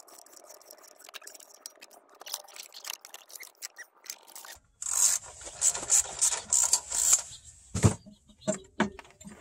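Scraping and rubbing as the Mazda 5's six-speed manual transmission is pushed and wiggled on its wooden jack cradle to line it up with the engine. Faint clicks and rubbing at first, then loud repeated scraping strokes from about halfway, a sharp knock near the end, and a few light clunks.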